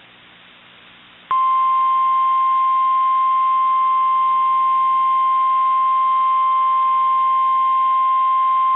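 NOAA Weather Radio 1050 Hz warning alarm tone: after about a second of faint radio hiss, a single steady high-pitched tone comes on and holds without a break. It is the alert signal that marks a warning broadcast, here a new tornado warning.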